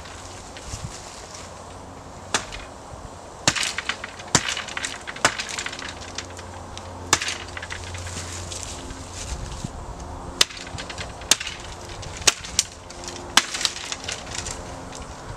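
A Ray Mears bushcraft axe chopping into wood: about a dozen sharp strikes at uneven intervals, some in quick pairs.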